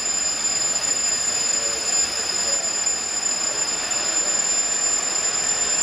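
Homemade turbojet engine built from a Holset HX turbocharger, running steadily on a jet go-kart: a loud rushing hiss with a steady high-pitched turbine whine in two tones.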